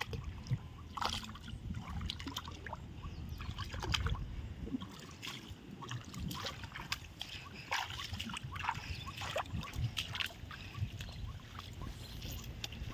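Footsteps and rustling through grass, with scattered short clicks and crackles, over a low rumble.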